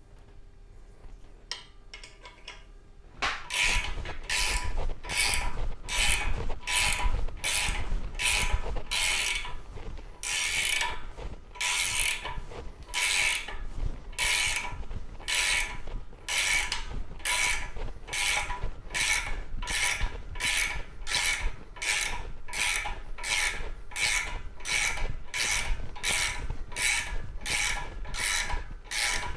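A socket wrench cranking the nut of a threaded-rod bushing puller that draws a new jackshaft bushing into a Jaguar V12 block, one rasping, clicking stroke after another at about one and a half a second, starting about three seconds in. The unoiled rod threads are under heavy force, and the owner later finds they galled.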